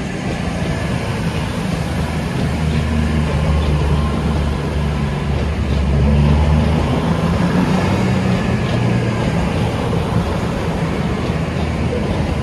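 Avanti West Coast Class 221 Super Voyager diesel-electric train, its underfloor Cummins diesel engines running with a steady low drone as the cars move past close by, louder about six seconds in.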